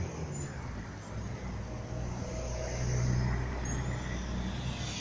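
Road traffic beside the tram stop: car engines and tyres passing on the adjacent road, a low hum that swells about three seconds in as a car goes by.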